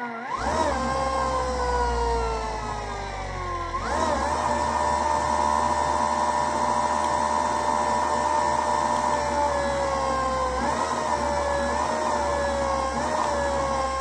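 Golden Motor HPM 10 kW dual-stator PMSM motor, driven by an EZ-B72800 sinewave controller, spinning unloaded in forward under a twist throttle. Its whine jumps up in pitch just after the start and slowly falls as it coasts down. About four seconds in it climbs again and holds steady, then rises briefly three times under short throttle blips near the end.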